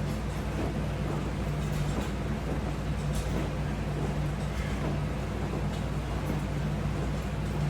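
A steady low hum made of several even tones, with faint soft rustles now and then.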